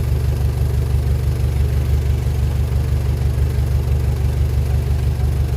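Heavy diesel engine of earthmoving machinery running steadily, a deep, even engine sound with a fast pulse.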